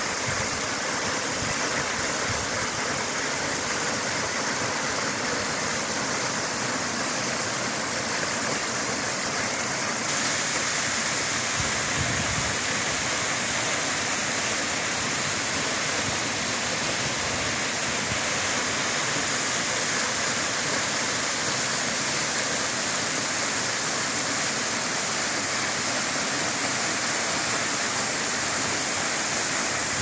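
Waterfall pouring over rock close by: a steady, dense rush of falling water, its tone shifting slightly about ten seconds in.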